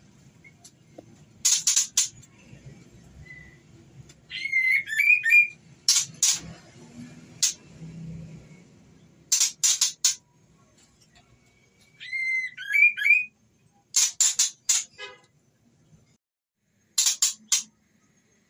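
White-rumped shama calls: short whistled phrases with quick up-and-down glides, alternating with tight groups of two to four harsh, rasping notes. The whistled phrases come twice. These are the female's calls in breeding condition, used as a lure to excite a male.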